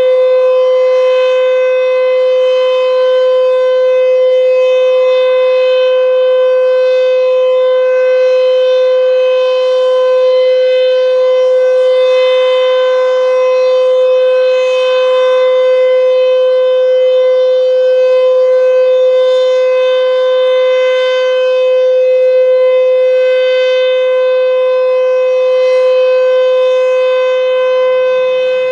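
Sentry 14V outdoor warning siren sounding at full speed during a test, holding one loud, steady tone without rising or falling.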